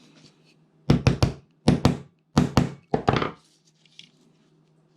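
A run of about a dozen sharp knocks in four quick clusters of two or three, a tool striking a small part of a cordless phone handset to break it open while it is taken apart for copper.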